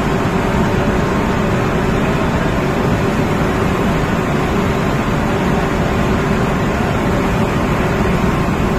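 Barge unloading alluvial sand: a steady machinery drone with a constant hum under an even rushing noise of sand running out of the hold, unchanging throughout.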